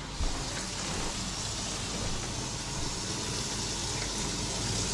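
Steady hiss of stovetop cooking: a pot at a rolling boil, with a low hum beneath.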